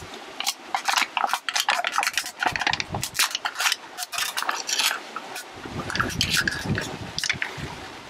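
Thin aluminium beer can being bent and torn apart by hand: rapid metallic crinkling and crackling.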